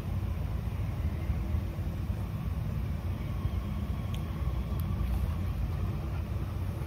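Steady low background rumble with no clear pitch, with a few faint clicks a little past the middle.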